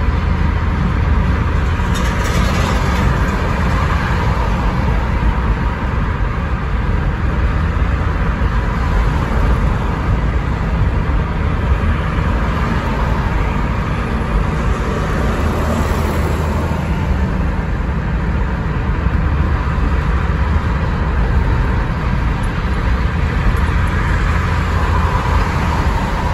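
Steady road noise inside a moving car's cabin: engine and tyres on the road, heaviest in the low end and even throughout.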